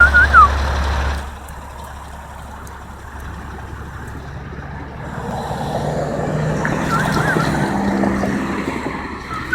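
A motor vehicle passing, its engine sound swelling from about five seconds in and fading near the end, with a few short high chirps at the start and again about seven seconds in.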